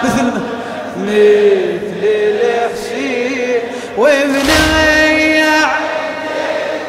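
Male reciter chanting a Shia mourning lament (latmiyya) unaccompanied, with ornamented melodic lines. About four seconds in, the voice rises into one long held note.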